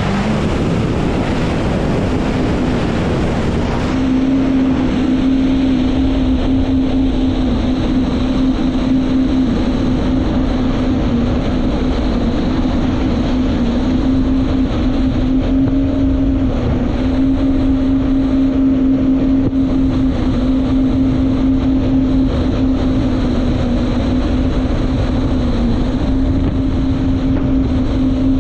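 Jet ski engine running at a steady throttle, a constant hum, with wind noise on the microphone; it grows a little louder about four seconds in.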